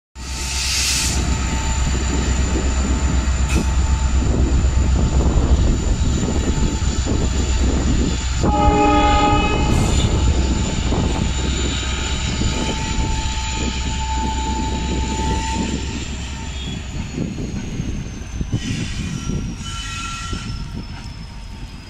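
LHB coaches of an express train rolling past with a steady rumble of wheels on the rails. A train horn sounds once, for about a second, near the middle.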